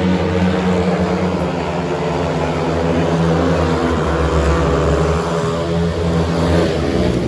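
Several speedway motorcycles' 500 cc single-cylinder methanol engines racing round the track together, a loud, continuous engine note whose pitch rises and falls as the riders take the bend.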